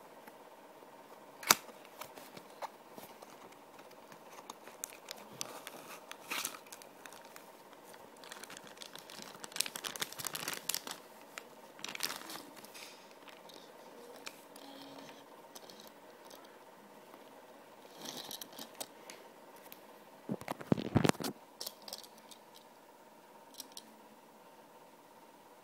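Packaging of a small Tomica toy car being handled and opened: cardboard and plastic rustling and tearing in short bouts, with scattered sharp clicks and a louder knock of handling near the end.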